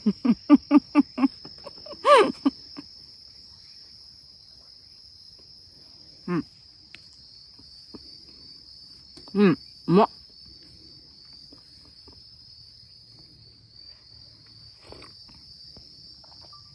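Insects in the forest giving a steady high-pitched drone. Over it, a woman's voice makes a quick run of short sounds in the first second and a few brief murmurs while she eats.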